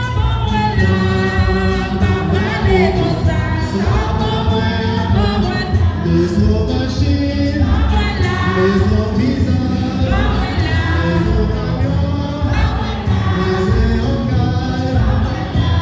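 Choir singing a church hymn over musical accompaniment, the voices holding and sliding between long notes over a steady bass.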